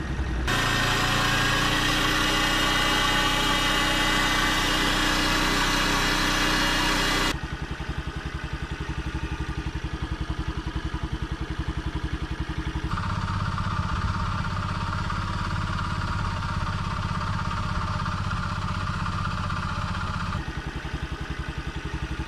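Honda Dio AF62 scooter's 49cc four-stroke single running with abnormal engine noise, held at raised revs for about seven seconds, dropping to a rough idle, rising again more gently for about seven seconds, then back to idle. It is run low on oil, a worn-out engine awaiting overhaul.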